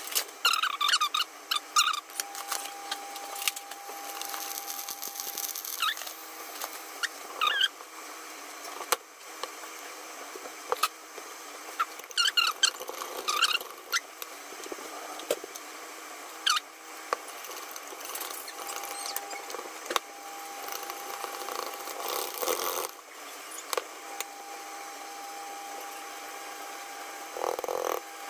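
Wire whisk scraping, clicking and squeaking against a stainless steel saucepan while a flour-and-butter roux is stirred and liquid is whisked in for brown gravy. A thin steady whine comes and goes in the background.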